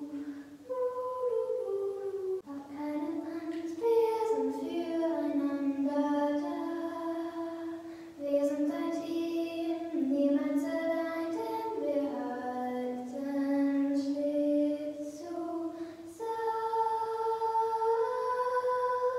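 A girl singing unaccompanied, a slow melody of long held notes with short breaks for breath.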